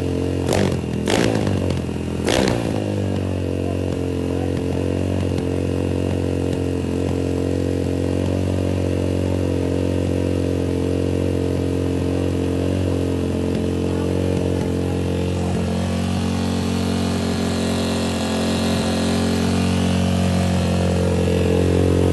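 Honda ML motorcycle's single-cylinder four-stroke engine, built out to a 79 mm bore, running on the stand through an aftermarket muffler. It is blipped three times in quick succession in the first few seconds, then settles to a steady idle that grows a little louder over the last few seconds.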